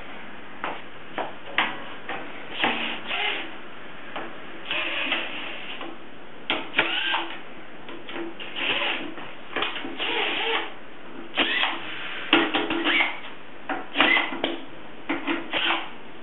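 Cordless drill running in repeated short bursts, each under a second, as it backs out the screws holding the old spring hinge to the kiln, with sharp metal clicks in between.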